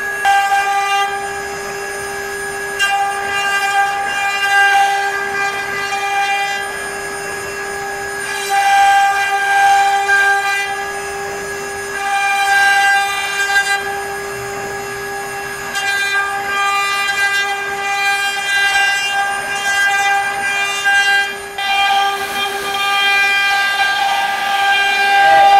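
CNC router spindle whining at a steady high pitch while its spinning bit carves grooves into a wooden panel, with the cutting noise swelling and easing every few seconds as the bit moves through the wood.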